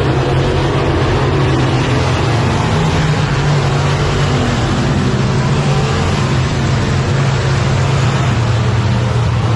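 A pack of dirt-track modified race cars running laps together, their V8 engines a loud, steady blended drone.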